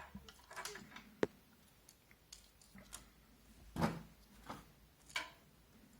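Scattered clicks and knocks of a case fan and its screws being handled against a computer case as the fan is screwed on. There is a sharp click about a second in and louder knocks near four and five seconds.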